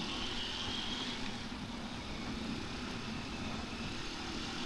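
Honda TMX125 Alpha motorcycle's single-cylinder four-stroke engine running steadily while riding, under an even rushing noise.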